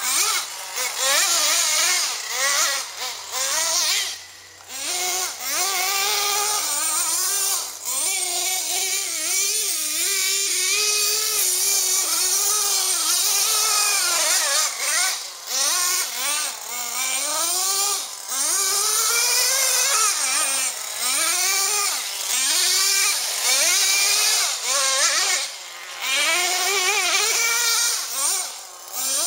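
Traxxas Jato 3.3 nitro RC stadium truck's small glow-fuel engine revving up and down over and over as it is driven, its pitch rising and falling every second or so, with a few brief drops when the throttle is let off.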